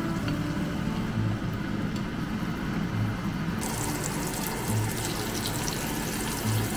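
Salmon pieces sizzling in hot oil in a frying pan, the sizzle coming in clearly about halfway through, over background music with a slow, regular beat.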